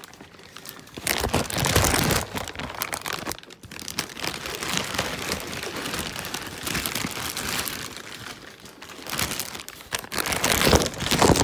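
Clear plastic bag crinkling and rustling as a model aircraft fuselage is worked out of it by hand, loudest starting about a second in and again near the end.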